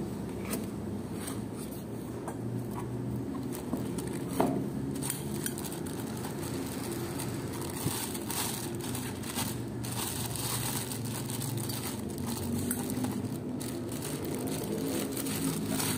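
Clear plastic bag crinkling and a cardboard box being handled as a cylinder head is unboxed, with scattered rustles and light taps over a steady low hum. The crinkling is densest in the middle.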